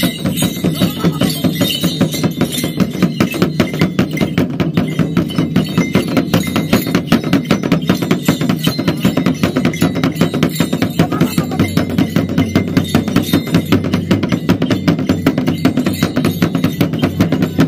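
Ritual dance music: a fast, steady percussion beat of about four strokes a second over a continuous low drone.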